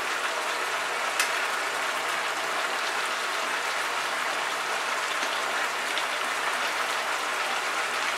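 Mixed vegetable curry sizzling steadily in a pan on high heat as its remaining gravy cooks down, with one light click about a second in.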